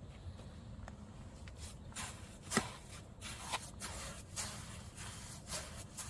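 Hand trowel scooping and scraping wet cement mortar in a plastic tub: a series of short, irregular scrapes, starting about two seconds in.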